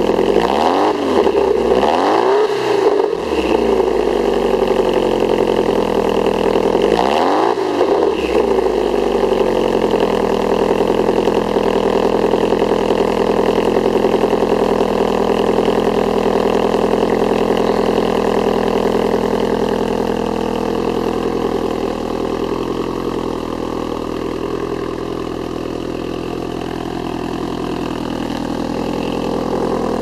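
Exhaust of a 1993 Toyota MR2 Turbo's 2.0-litre turbocharged four-cylinder, through a dual-tip exhaust. The engine is blipped several times in the first few seconds and once more about seven seconds in, then settles to a steady idle.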